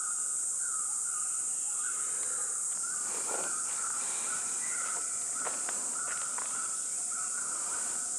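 Steady high-pitched insect chirring, with a chirp that pulses on and off about twice a second. A couple of faint soft knocks come in the middle.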